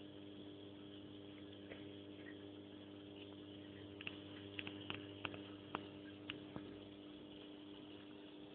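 A steady low electrical hum with a few even overtones, and a run of about a dozen small sharp clicks from about four to seven seconds in.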